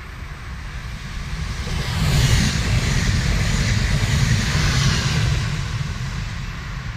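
Siemens Desiro passenger multiple unit passing close by: a rumble and rushing hiss of the train on the rails that builds for about two seconds, stays loud for about three, then fades away.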